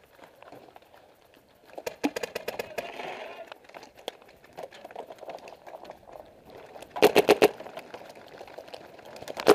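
Paintball markers firing in rapid strings: a quick run of shots about two seconds in, then a loud burst of about five shots around seven seconds in, with another shot or two right at the end.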